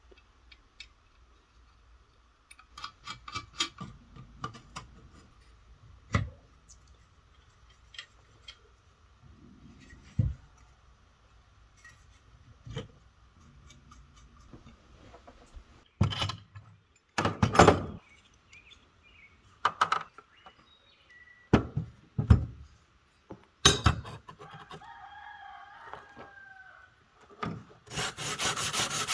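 Scattered knocks and clatter of workshop tools and parts being handled, with a rooster crowing once in the background late on. Right at the end, rhythmic sanding by hand starts.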